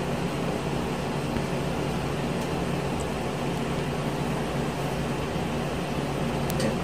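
Steady mechanical hum and hiss of a running fan-driven machine, with an even low drone that does not change.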